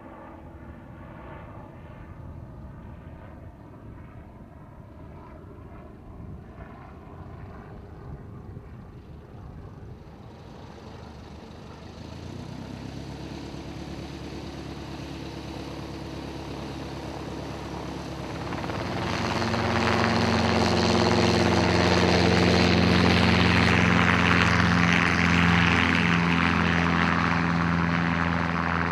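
Light aircraft piston engines: a high-wing single-engine plane's engine running at taxi power, its steady note growing louder from about twelve seconds in. About two-thirds of the way through it swells to a loud, full drone, and near the end a small piston helicopter's engine and rotor are heard hovering close by.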